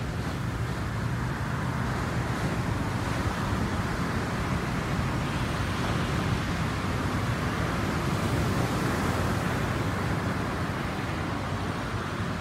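Pacific surf washing on the shore, a steady rushing noise that swells a little about eight seconds in, with a low steady rumble beneath it.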